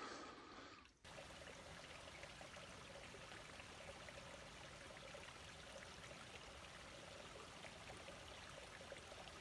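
Faint, steady trickle of running water from a small creek or spring seep, starting abruptly about a second in.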